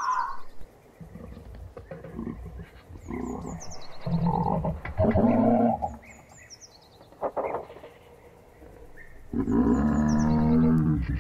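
Giraffe giving low, buzzy humming, snore-like calls in several bouts, the longest held steadily near the end. Faint high, falling bird chirps come in now and then.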